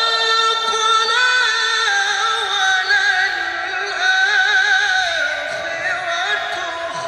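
A male qari chants solo into a microphone in the melodic tilawah style of Quran recitation. He sustains long notes with a wavering vibrato and decorates them with ornamental turns.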